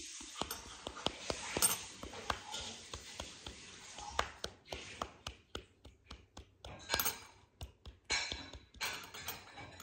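Repeated palm smacks on the base of an upturned hot sauce bottle, short sharp taps a couple of times a second, knocking thick, goopy sauce out onto a spoon.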